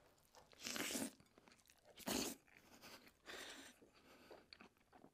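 Quiet close-up mouth sounds of someone eating hot, soft omurice from a wooden spoon: chewing with small wet clicks, broken by three short breathy puffs about a second apart, the middle one loudest, as he blows out the heat of the food.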